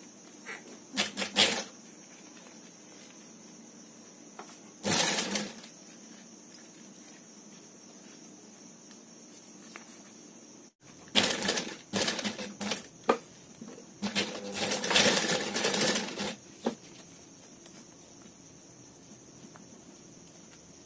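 Industrial lockstitch sewing machine stitching a zipper onto fabric in short runs: briefly about one second in, again around five seconds, then several stop-start runs from about eleven to sixteen seconds, with a steady hum between runs.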